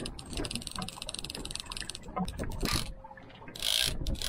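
Big-game fishing reel's ratchet clicking rapidly and evenly, then in shorter broken runs, while the reel is under the strain of a large hooked shark.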